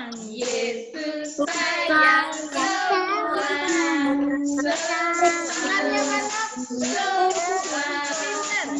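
A children's action song sung by a child's voice over a music backing track.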